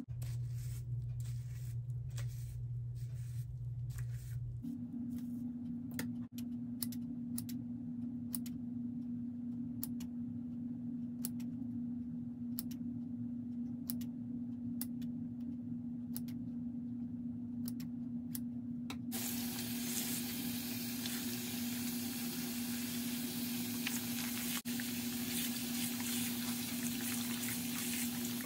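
Bathroom sink tap running, water splashing into the basin and over a doll's hair; the water starts about two-thirds of the way through. Before that there are only faint scattered clicks of handling over a steady low hum.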